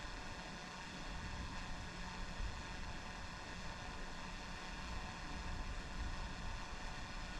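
Wind buffeting an action camera's microphone: a low, uneven rumble over a steady hiss.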